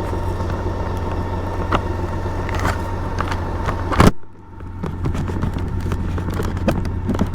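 BMW K1600 GTL's inline-six engine running steadily under way, heard on a bike-mounted recording, with scattered clicks. A sharp click comes about four seconds in, followed by a brief drop in the sound before it picks up again.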